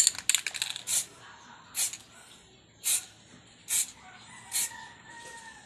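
A quick run of clicks and short hisses, then single short hissing bursts about once a second. Faint steady whistle-like tones join in near the end.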